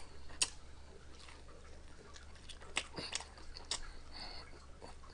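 Close-up chewing and biting of fried chicken: scattered sharp crunches and wet mouth clicks, a few stronger ones about three seconds in.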